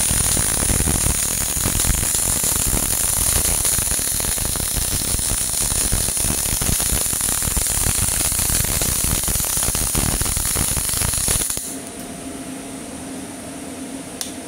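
MIG welding arc with its steady, dense crackling hiss as the automatic carriage carries the torch along the seam, with the welder's voltage turned down to 19. The arc cuts off abruptly about eleven and a half seconds in, leaving the steady hum of the welding machine.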